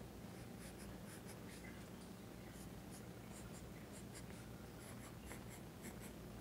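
Pencil graphite scratching on paper in many short, quick strokes, a few each second and irregularly spaced, as hair lines are sketched. The strokes are faint, over a low steady hum.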